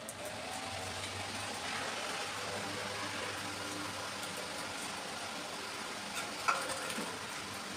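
A steady motor hum with a hiss underneath, and a single short click about six and a half seconds in.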